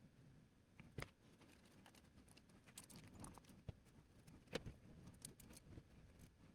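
Near silence with scattered faint clicks and taps, the clearest about a second in and just past the middle, from small 3D-printed plastic parts being handled and fitted together during assembly.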